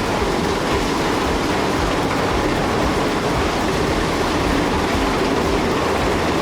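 Steady, loud rumbling and rattling of heavy vehicles or machinery on the move.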